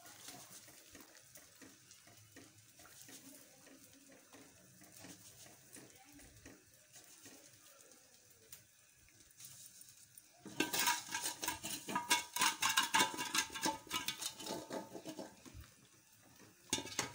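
Wooden spatula stirring semolina into boiling water in a steel pot. Faint for the first ten seconds, then a fast run of scraping knocks against the pot for about five seconds, and one more short clatter near the end.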